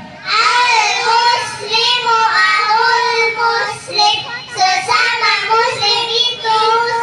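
A group of young children chanting a hadith together in a sing-song melody, amplified through microphones and a loudspeaker system.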